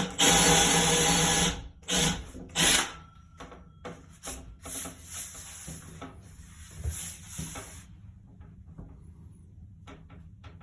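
A drill and hole saw handled against a wooden board: a loud scraping burst of about a second and a half, then two shorter ones, then scattered rubbing and light knocks that die away near the end.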